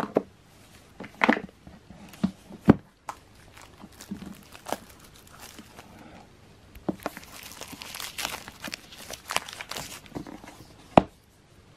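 Cardboard merchandise box and its paper contents being handled on a table: scattered sharp knocks and taps, the loudest about three seconds in and near the end, with a few seconds of paper or plastic crinkling in the second half.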